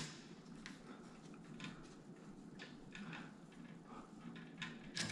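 Faint scattered clicks and light rustling of hands working on the electrical wires of a light fixture, with one slightly louder click near the end.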